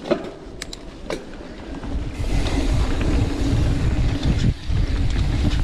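Propain Tyee mountain bike riding down a dirt forest trail: tyres rolling over the ground and wind rushing over the camera microphone. A few sharp clicks and knocks in the first second or so, then a loud, steady rumble from about two seconds in.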